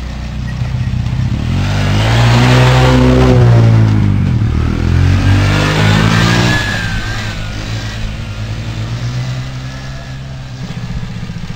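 A kid's ATV engine revving, getting louder and rising in pitch about two seconds in as the quad comes close, then dropping back and fading as it rides off.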